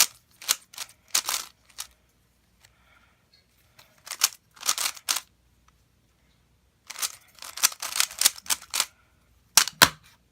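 3x3 speed cube being turned fast by hand: quick runs of plastic clicks and clacks from the layers turning, broken by short pauses, with a sharp knock near the end.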